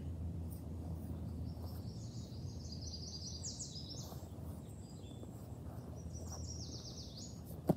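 Songbird singing in the background: two phrases of high, quick notes, each running into a fast descending trill, over a steady low outdoor hum. A single sharp tap comes right at the end.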